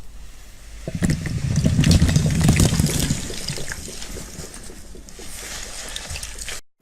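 Slime being squeezed and worked by hand, a dense wet crackling and popping that swells about a second in, is loudest for the next two seconds, then eases off and cuts off suddenly near the end.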